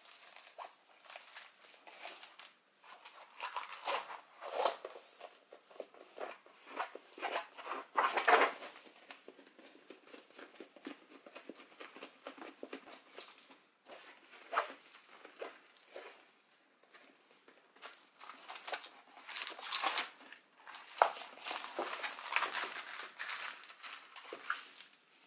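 A rolled diamond-painting canvas in clear plastic film and a large white paper sheet being handled and rolled up, rustling and crinkling in uneven spells. It is loudest about eight seconds in and again from about nineteen to twenty-three seconds.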